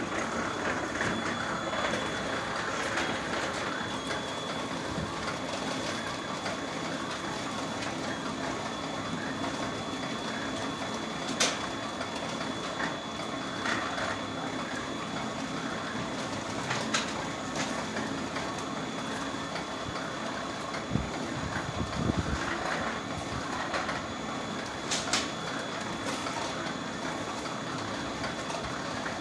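Clay brick making machine running with a continuous mechanical rattle and a faint steady high whine. Occasional sharp knocks stand out above it.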